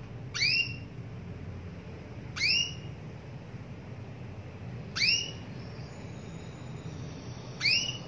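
Female domestic canary calling to a male: four short, single rising call notes, evenly spaced about two and a half seconds apart.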